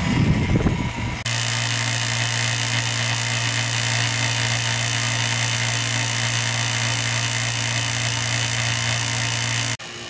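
Two-stage rotary vane vacuum pump running steadily with a strong low electric-motor hum and hiss, pulling a vacuum on an automotive air-conditioning system. A brief low rumble comes in the first second, and the sound cuts off suddenly near the end.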